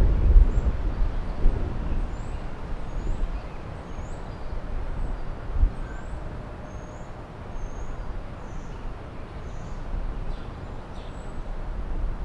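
Outdoor ambience: a low rumble of wind on the microphone, strongest at the start, with a small bird chirping over it in short, high, repeated notes.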